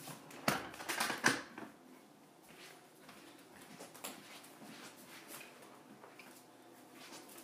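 A quick run of knocks and clicks about a second in, then quiet room tone with faint scattered ticks.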